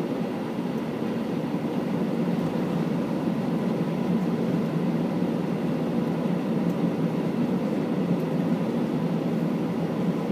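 Steady cabin noise inside an Airbus A319 taxiing on the ground: a low rumble from the jet engines at idle and the rolling aircraft, with a faint steady hum.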